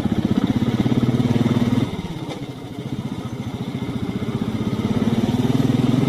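Royal Enfield Classic single-cylinder motorcycle engine running on the move, with a fast, even thumping beat. About two seconds in it eases off, then it builds gradually again toward the end.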